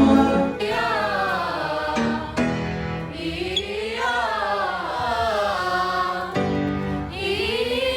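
Music: voices singing a slow melody, holding notes with vibrato and gliding between pitches, over sustained accompaniment chords that show between the phrases.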